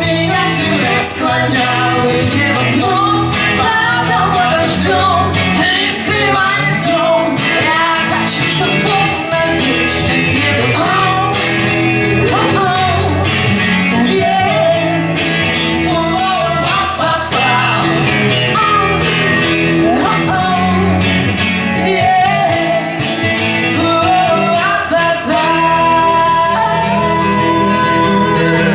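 Song performed unplugged: a voice singing a melody over guitar accompaniment, steady and full throughout.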